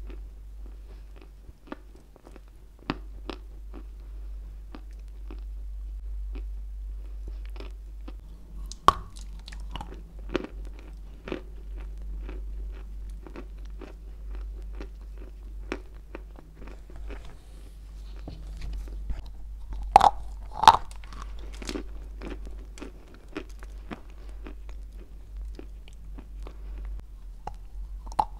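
Close-miked chewing of dry white Turkestan edible clay: a run of sharp, crumbly crunches as bites are broken up in the mouth, the loudest about nine seconds in and twice at about twenty seconds.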